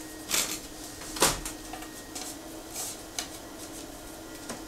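A CD case and its paper booklet being handled: scattered short rustles and light clicks, with one sharper knock about a second in, over a faint steady hum.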